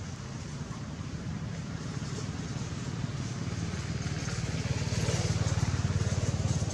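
An engine running, a low rumble with a fast even pulse that grows louder about four seconds in and is loudest near the end.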